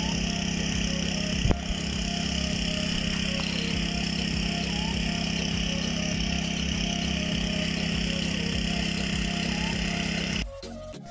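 Small petrol engine driving a portable pesticide spray pump, running steadily. There is one sharp knock about a second and a half in, and the engine sound cuts off abruptly near the end.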